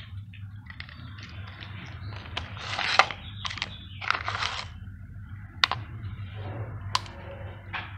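Dry cat kibble poured from a plastic cup onto a tile floor, rattling and scattering in a few short bursts, followed by a couple of sharp clicks.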